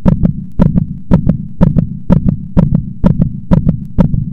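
Heartbeat sound effect: paired lub-dub thumps about twice a second, over a steady low hum.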